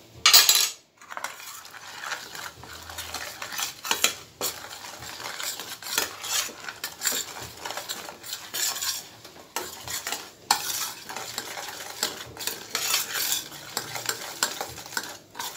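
A spoon stirring and scraping around a pan of hot sugar syrup, just after baking soda has gone in, with a light sizzle under it. A loud clatter at the very start, then steady irregular scraping and knocking.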